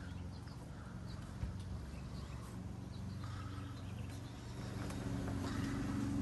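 Faint footsteps on a concrete walkway over a low steady hum, the hum growing a little louder near the end.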